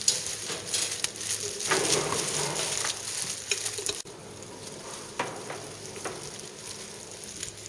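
Crackly rustling of disposable plastic gloves and over-sleeves, with light clicks of plastic food containers and lids, as side dishes are scooped from steel serving trays. The rustling drops to quieter, sparser clicking about four seconds in.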